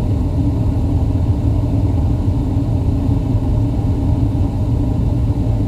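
Gas furnace running with its burners firing, a steady low rumble. The technician is reading the manifold gas pressure at this point, which is at the altitude setting of about 3.0 inches.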